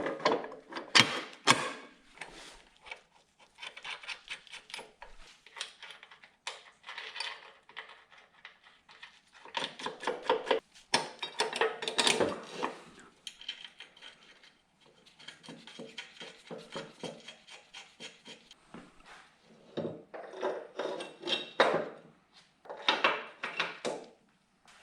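Hand work on bolts and a small steel bracket at a Humvee body mount: runs of rapid metallic clicking with occasional sharper clinks of metal parts.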